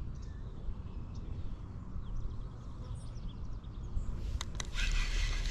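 Outdoor pond ambience: a steady low rumble of wind on the microphone with faint, short bird chirps. Near the end come a couple of sharp clicks and a louder hissing rustle.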